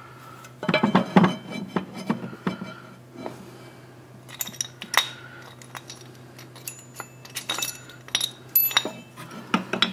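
Metal brake parts and tools clinking and tapping as a motorcycle's rear brake caliper, pads and retaining pins are handled. The clinks come irregularly, some with a short metallic ring.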